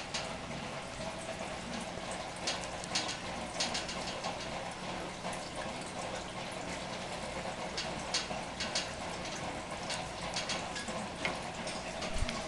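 Large aquarium's water running and trickling steadily, with a low steady hum from the tank's equipment and many irregular sharp plops and clicks at the water.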